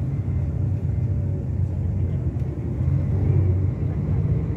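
Mercedes-Benz O-500RSD-2441 coach's diesel engine running with a steady low rumble, swelling slightly about three seconds in.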